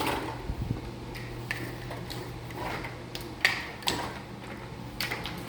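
A window blind being opened by hand: a string of irregular clicks and knocks from its slats and mechanism. A steady low hum from running ceiling fans lies underneath.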